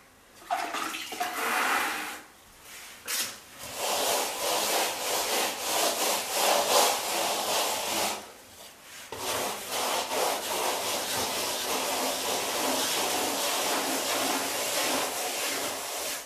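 Damp sponge float rubbed in small circles over a fresh hydraulic-lime skim coat: a steady wet scrubbing that breaks off briefly twice, about two and a half seconds in and about eight seconds in. It is the sponging pass that evens out the second skim coat before the final finish.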